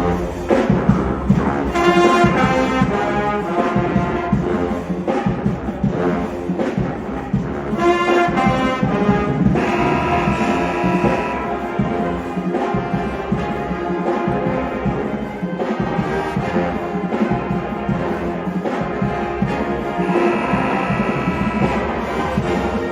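Music led by brass instruments, with held notes.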